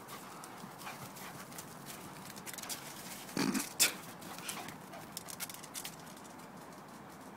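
A Labrador's noises as it dashes about, with scattered short scuffs and clicks and one louder short sound about three and a half seconds in.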